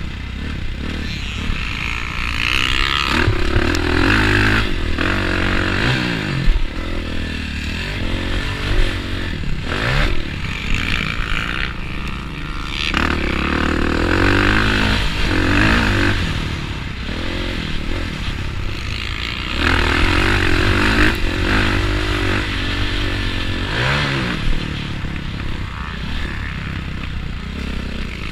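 Motocross bike engine heard from the rider's helmet camera while racing, revving hard up the gears and dropping off again and again for corners and jumps.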